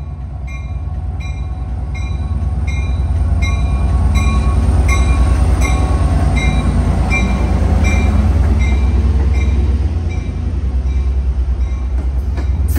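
Trinity Railway Express commuter train passing: a heavy low diesel rumble that is loudest through the middle, with a bell ringing steadily about twice a second.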